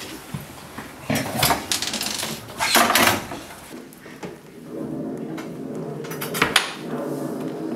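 Clinks and clatters of dishes and cutlery being handled at a kitchen cupboard. The loudest bursts come about a second in and around three seconds in, with another sharp clink near the end.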